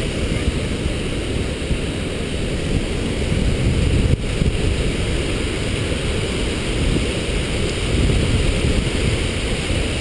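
Skógafoss waterfall pouring, a loud, steady rush of falling water heaviest in the low end, with wind and spray buffeting the microphone.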